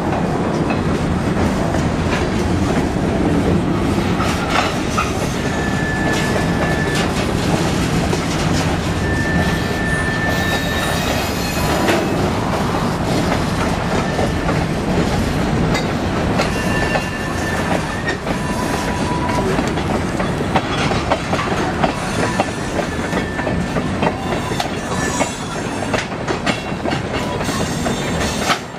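Freight train of covered hopper cars and tank cars rolling past, a steady rumble of steel wheels on rail with clicking over the rail joints. Several short, high wheel squeals come through it.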